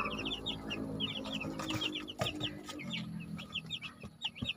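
A brooder full of broiler chicks peeping, many short high chirps overlapping without pause, over a low steady hum.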